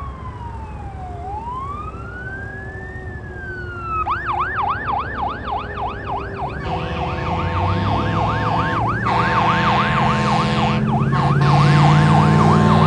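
Fire engine's electronic siren sounding a slow wail that switches to a fast yelp, about four rises a second, some four seconds in. From about seven seconds a deeper steady sound joins in, and the whole grows louder as the engine comes closer.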